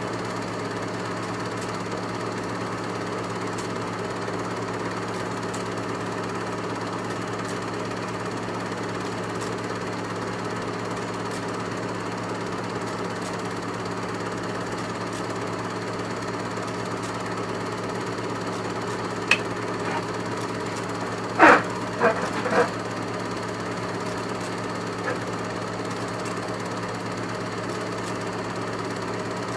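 Steady mechanical whir and hum of a film projector running, typical of a silent home-movie reel played back. A few sharp clicks come about twenty seconds in.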